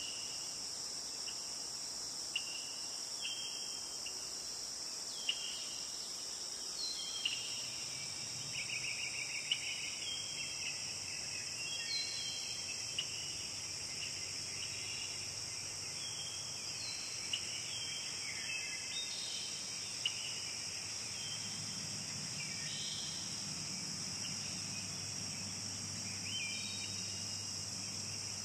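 Steady high-pitched chorus of insects, with many short bird chirps and whistles scattered through it and a few sharp clicks.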